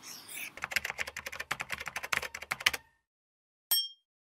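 Logo-animation sound effects: a brief scratchy pen-on-paper sound, then about two seconds of rapid keyboard typing clicks as text is spelled out, then a single short bright ding near the end.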